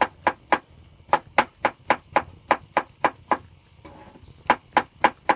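Kitchen knife chopping tomatoes on a wooden cutting board: a steady run of sharp knocks, about four a second. The knocks stop for about a second after three seconds, then four more follow.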